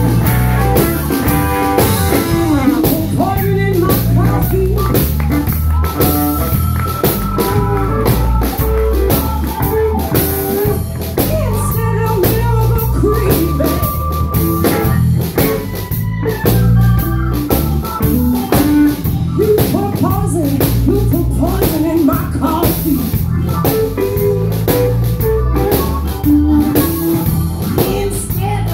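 Live blues band playing: electric guitar, electric bass and drum kit, loud and continuous.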